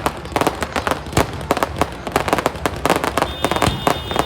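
Fireworks bursting in rapid succession: a dense, irregular string of sharp cracks and bangs, several a second.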